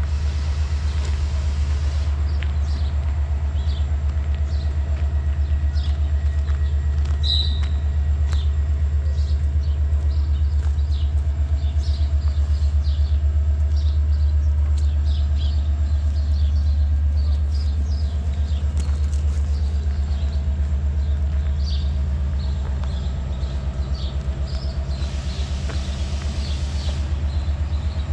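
A train running with a steady low rumble and faint high ticking over it; the rumble eases slightly near the end.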